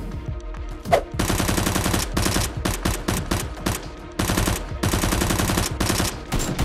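Rapid automatic gunfire sound effects in two long bursts, the first starting about a second in and the second after a brief break just past four seconds.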